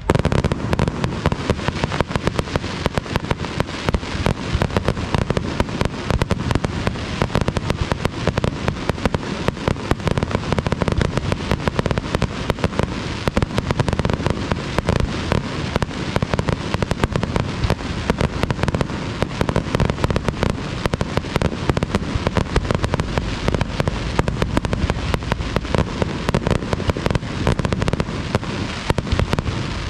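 Aerial fireworks display going off in a dense, unbroken barrage: many bangs and crackles every second, with no pause.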